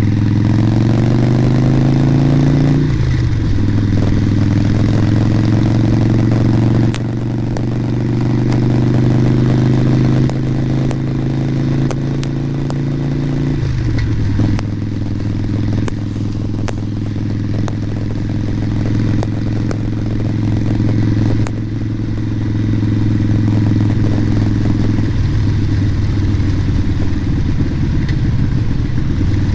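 Harley-Davidson Sportster Nightster's air-cooled V-twin heard through a helmet microphone while riding. The revs climb for the first few seconds and drop at a gear change about three seconds in, climb again and drop at another shift around fourteen seconds, then run steady, with a few sharp pops scattered through.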